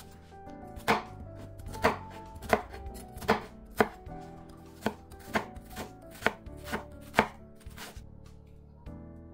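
Chef's knife chopping an onion on a wooden cutting board: about ten sharp knocks, each roughly half a second to a second after the last, stopping shortly before the end.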